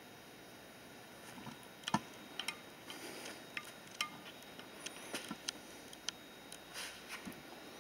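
Irregular light clicks and taps, some with a short metallic ring, over a faint steady hiss.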